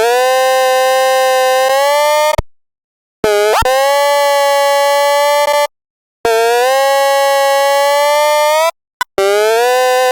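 Handheld megaphone sounding its built-in siren tone in four long blasts of about two and a half seconds each, separated by short gaps, with a brief blip before the last. Each blast opens with a quick dip in pitch, then holds a buzzy tone that creeps slightly upward.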